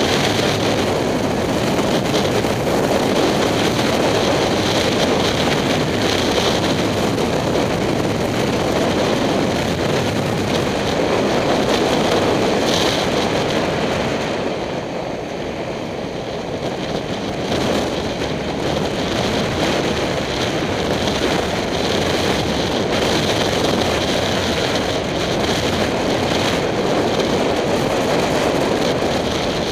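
Steady wind rush and motorcycle running noise from a 2007 Kawasaki Ninja 250 ridden at road speed, picked up by a helmet-mounted camera. It eases off for a few seconds about halfway through, then builds again.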